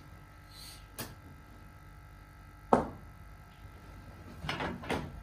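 A cricket ball striking the batsman: one sharp knock about two and three-quarter seconds in, with a small knock about a second in and a few lighter knocks near the end.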